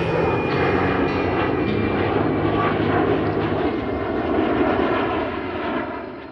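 Steady aircraft engine noise that fades away over the last second or so.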